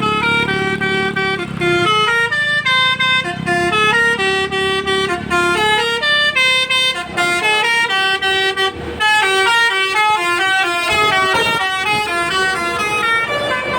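Multi-tone telolet bus horn playing a quick melody of stepped notes that jump up and down, with the bus engine running underneath.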